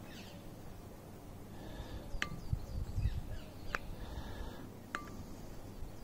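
Birds calling: three sharp, downward-sweeping whistles about a second and a half apart, with fainter chirps between them. A few low bumps and rumbles come in the middle.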